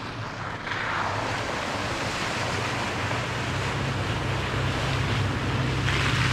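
Toyota FJ Cruiser's V6 driving on an off-road trail: a steady low engine hum under a rushing noise of tyres and wind. The rush swells about a second in and again near the end.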